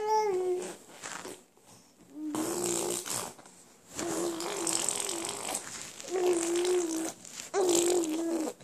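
A baby vocalizing: a short babbled sound at the start, then four breathy, hissing vocal sounds about a second long each, each held on a steady note, with short pauses between them.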